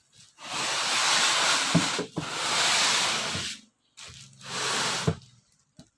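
Three long rubbing strokes, each lasting about a second and a half, with short gaps between them.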